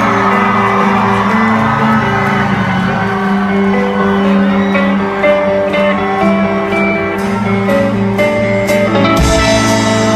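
Live rock band playing the opening of a song: melody notes over held chords, with sharp percussion hits coming in during the last few seconds.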